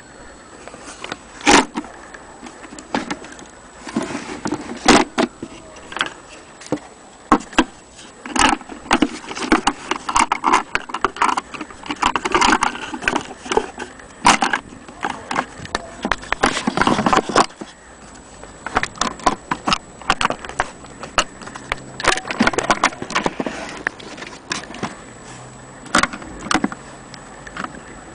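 Vintage Corona portable typewriter being typed on: irregular sharp clacks of keys striking, single strokes at first, then quicker runs in the middle, then scattered strokes again.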